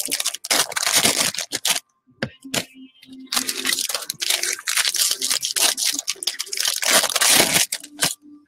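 Foil wrappers of baseball card packs being torn open and crinkled, in loud rustling bursts with short pauses.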